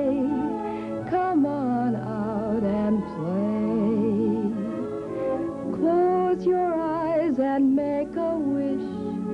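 A woman singing a show tune with strong vibrato over sustained instrumental accompaniment.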